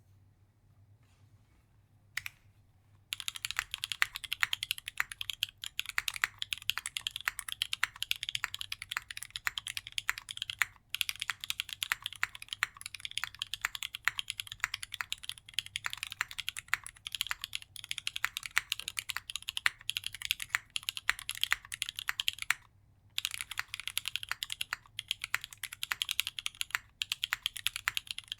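Continuous fast typing on a custom mechanical keyboard with Kailh BCP switches, a brass plate, GMK Hazakura ABS keycaps and no case foam. After a quiet start with a single keystroke about two seconds in, the typing begins about three seconds in and runs as a dense stream of clacks, with a brief pause about three-quarters of the way through.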